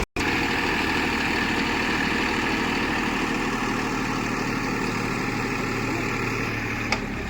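Heavy diesel engine of the earthmoving machinery running steadily at a low, even speed, with a short click near the end.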